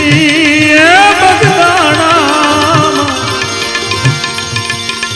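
Devotional bhajan music. A tabla keeps a steady rhythm with gliding bass strokes under a wavering melody line that fades after about three seconds.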